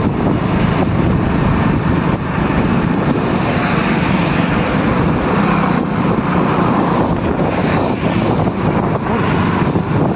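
Loud, steady vehicle noise from travelling at speed along a highway: engine and road rush with wind over the microphone.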